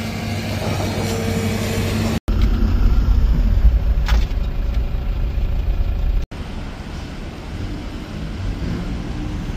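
Vehicle engine noise: a steady idling-engine hum on a street, then a cut about two seconds in to a louder low rumble inside a car cabin, then a cut about six seconds in to a quieter steady hum.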